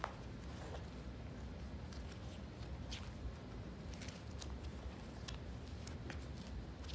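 Light, irregular clicks and rustles of cats batting at and handling a toy, over a steady low hum.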